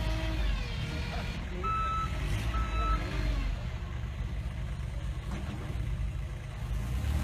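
Small site dumper's engine running with a low rumble, its reversing alarm giving two short beeps about a second and a half and two and a half seconds in, a sign that the machine is in reverse gear.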